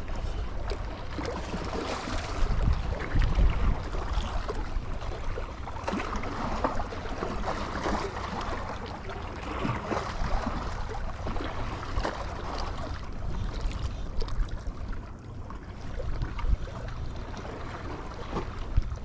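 Wind buffeting the microphone with a steady low rumble, over sea water washing and lapping.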